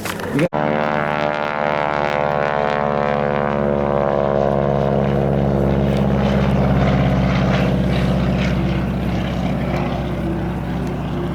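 Propeller airplane's engine droning in flight. It comes in abruptly about half a second in at a steady pitch, and the sound grows duller as it goes on.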